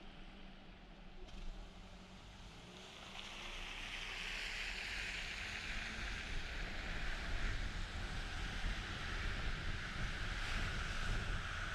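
Car tyres hissing on wet asphalt, starting faint and building up from about three seconds in as the car pulls away from a stop and gathers speed, over a low road rumble.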